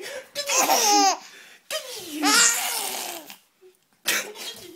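A baby laughing and babbling in three short bursts, with a brief pause about three and a half seconds in.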